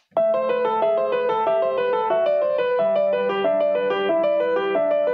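Grand piano with its lid open, played in a quick, even run of broken-chord notes over a held bass note that changes about halfway through. The notes ring out and fade near the end.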